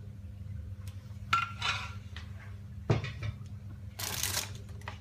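Metal spoon clinking and scraping against a nonstick frying pan while melted cheddar is spooned out, with a sharp knock about three seconds in and a brief rasp just after four seconds.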